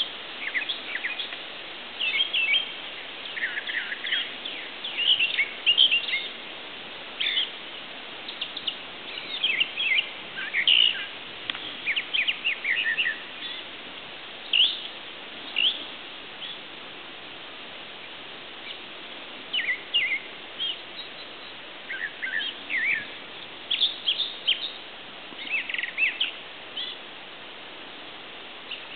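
Songbirds singing: many short chirps, trills and whistled notes in quick phrases, with a lull of a few seconds a little past the middle, over a steady hiss.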